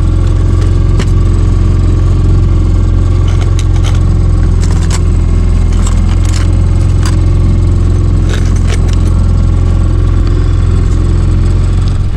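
Boat's outboard motor running steadily at trolling speed, a loud low drone. Scattered light clicks and clacks come from metal trolling spoons being picked through in a plastic tackle box.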